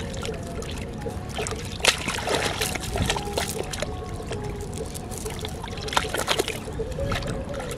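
Metal chain links clinking in irregular clicks as the chain is fed down into a hole in wet sand, over a trickle of water.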